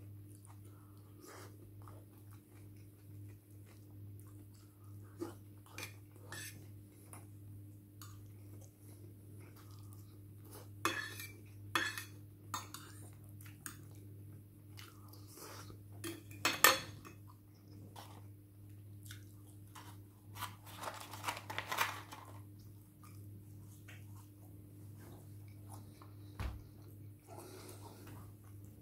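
Cutlery clinking and scraping on dishes while food is eaten, with some chewing. The clinks come in scattered short strokes, with a sharper one about 17 seconds in and a quick run of scraping around 21 seconds, over a faint steady low hum.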